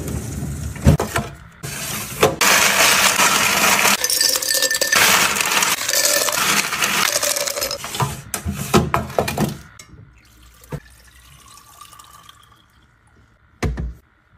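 A rush of ice cubes clattering into a stainless-steel bin, a dense clinking pour lasting about eight seconds after a sharp knock at the start. A few light clicks follow, then a thud near the end.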